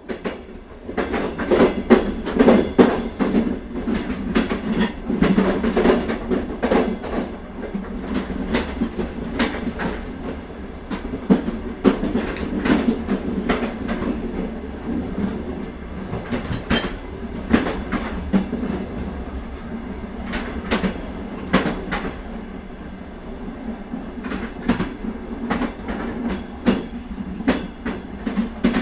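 Indian Railways passenger train running along the track: a steady rumble with many irregular sharp clicks of the wheels going over rail joints.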